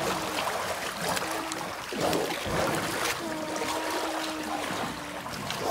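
Water sloshing in a concrete wallowing pond as Nili-Ravi buffaloes shift about in it, with several short splashes.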